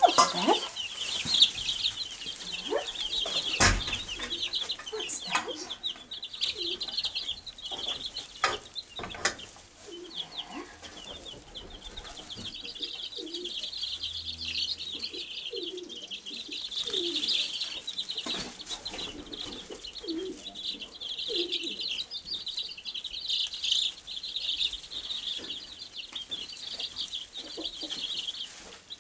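A brood of Wyandotte bantam chicks peeping continuously, many high chirps overlapping, with a few sharp knocks, the loudest about four seconds in.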